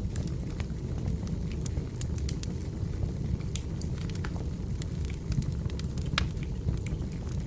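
Firewood burning in a fireplace: a steady low rumble of flames with scattered sharp crackles and pops from the logs.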